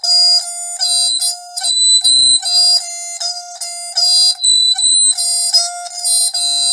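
Music heard through a cheap walkie-talkie kit's small speaker: a tinny tune of short pitched notes in phrases, with brief gaps between them.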